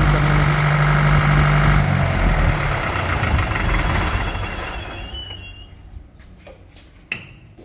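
Tata-engined 25 kVA silent diesel generator set running steadily, then shut off about two seconds in; its sound dies away over the next few seconds. A sharp click follows near the end.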